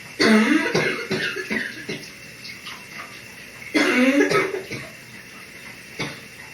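A person's morning cough in a running shower: a run of several coughs, a second bout about four seconds in, and one short cough near the end, over the steady hiss of the shower water.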